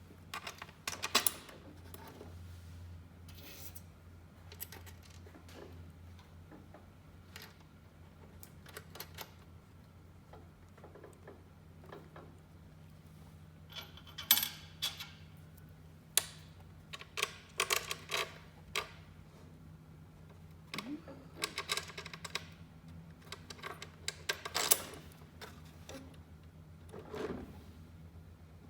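Scattered clicks and light metallic clatter of screws and a hand tool as a panel is screwed into place, coming in short clusters with pauses between them.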